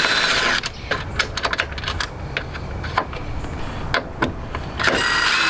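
Cordless drill-driver with a hex bit spinning a steel dress-up bolt in: a short run at the start and another near the end, with sharp metallic clicks of the bit, bolts and washers being handled in between.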